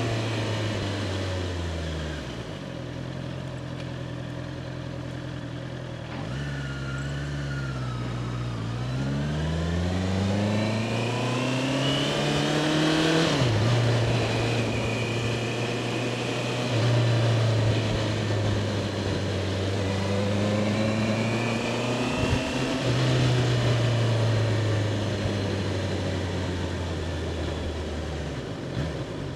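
2021 Honda CBR650R's inline-four engine on the move: it slows about two seconds in, then revs up steadily from about nine seconds in, drops sharply at a gear change near the middle, holds a steady cruise and eases off near the end.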